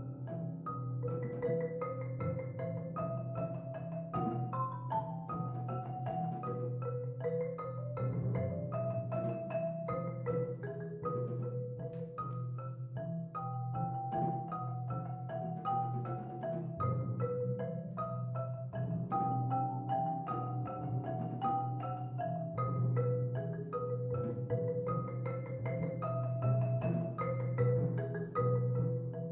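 A percussion ensemble playing: a marimba struck by two players in a quick, busy run of mallet notes over a steady low drum roll underneath.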